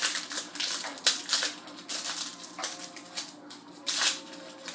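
Hockey trading cards being handled: a run of short, crisp rustles and slides of card stock and pack wrapper, irregularly spaced, with a louder swish near the end.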